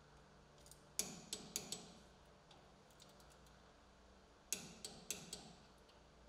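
Ratchet-head torque wrench clicking while tightening the outer radius rod mounting nuts to specification on a Polaris RZR 200 EFI's rear bearing carrier. There are two short runs of metallic clicks, one for each fastener: about a second in, and again a little past the middle.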